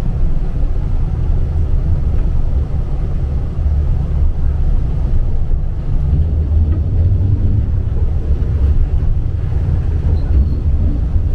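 Tram running along the track, heard from inside the car: a steady low rumble of wheels and running gear.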